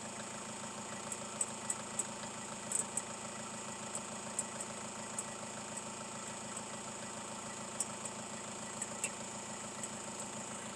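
Opel Vivaro engine idling steadily, with irregular sharp ticks coming from the alternator. The cause was a small loose piece of metal or stone rattling inside the alternator.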